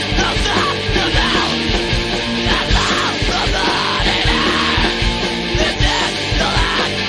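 Hardcore punk recording: fast, driving drums and distorted electric guitars, with shouted vocals over them.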